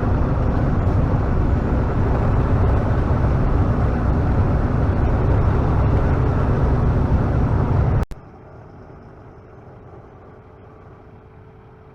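Farm machinery running with a steady low rumble, which cuts off abruptly about eight seconds in; a much quieter steady hum follows.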